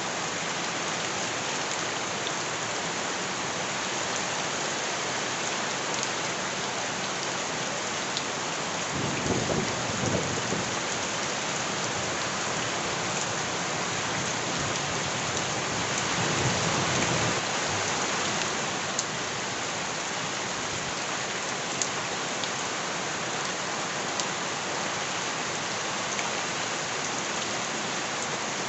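Steady heavy rain pattering on surfaces, with two low rumbles of thunder, about ten seconds in and again about seven seconds later.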